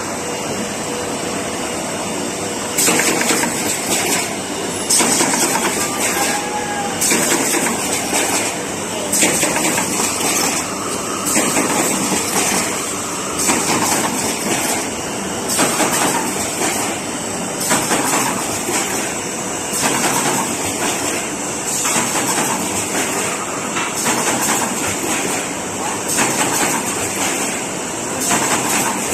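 Automatic corrugated paperboard partition assembly machine running: a steady mechanical noise, with a short hissing burst about every two seconds from about three seconds in as the machine cycles.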